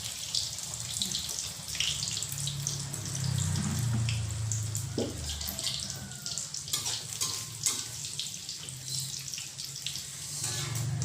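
Beaten egg frying in hot oil in a pan for an omelette: a steady sizzle with many small crackles and spits throughout.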